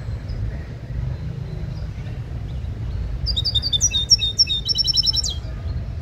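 A caged songbird sings one short phrase of quick high twittering notes ending in a fast trill, starting about three seconds in. A steady low rumble runs underneath.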